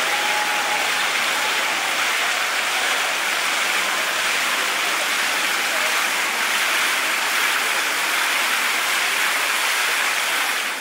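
A steady rushing hiss like falling water, even in level throughout.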